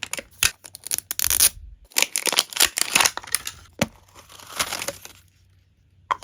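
Crinkly plastic packaging being torn open and handled, a run of crackles, rips and small clicks that stops about five seconds in.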